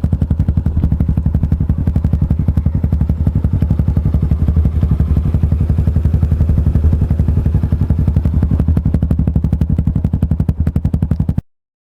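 Suzuki Gixxer 150's single-cylinder four-stroke engine idling steadily through an aftermarket Akrapovic open-pipe muffler, a fast, even exhaust putter. The sound cuts off abruptly near the end.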